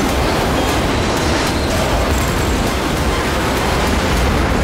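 Fighter jet engines running in flight, a loud steady rushing roar, with faint scattered clicks over it.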